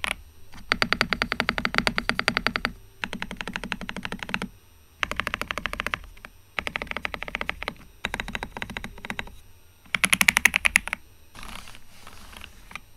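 Epomaker Shadow X mechanical keyboard with Budgerigar tactile switches being typed on fast, in bursts of rapid key clicks of one to two seconds with short pauses between; the last burst is softer.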